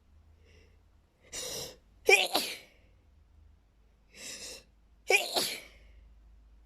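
A person in a sneezing fit: two loud sneezes, about two and about five seconds in, each set off by a quick breath in just before it.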